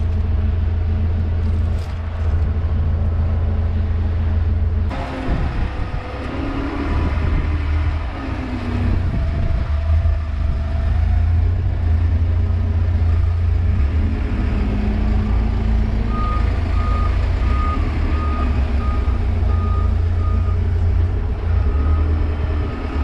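Heavy vehicle's engine running, its note changing and wavering from about five seconds in as it works. Past the middle a reversing alarm sounds a run of short beeps, about two a second.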